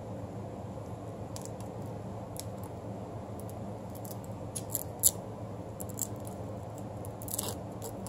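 Fingers handling a black velcro hook-and-loop strap against the plastic edge of a small solar panel: scattered light clicks and ticks, one sharper click about five seconds in, and a short scratchy rasp near the end.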